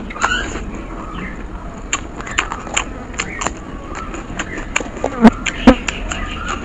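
Close-miked chewing and wet mouth clicks and smacks of a mouthful of soaked water rice eaten by hand. A little after five seconds, two loud crunches as a raw green chili is bitten.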